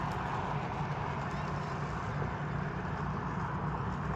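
Steady rolling noise of a scooter being ridden along.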